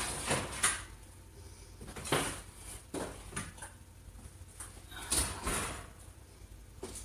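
A series of separate knocks and clunks from a kitchen oven's door and the metal baking sheets inside being handled, with the loudest pair about five seconds in as the door is shut.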